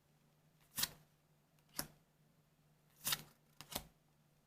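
Trading cards being slid off a stack in the hand, one over another: four short, dry swishes about a second apart.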